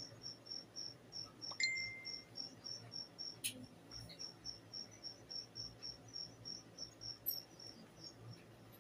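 Insect chirping steadily, about five short high chirps a second. A brief high beep sounds about a second and a half in.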